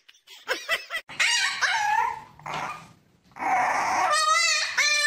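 A puppy crying: a run of loud, high-pitched whines and yelps starting about a second in, with a long cry that wavers quickly in pitch near the end.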